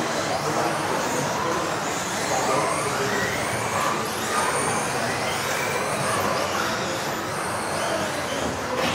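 Several electric off-road RC cars racing at once. Their motors whine, rising and falling in pitch as they speed up and slow down, over a steady hum of drivetrain and tyre noise.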